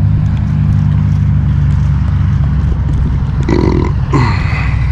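Steady low hum of an idling engine, with two short grunt-like voice sounds about three and a half and four seconds in.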